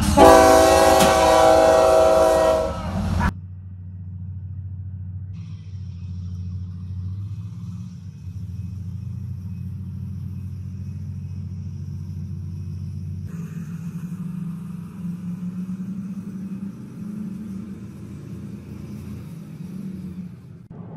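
A loud multi-tone horn sounds a steady chord for about three seconds and cuts off abruptly. It is followed by a quieter, steady low engine hum.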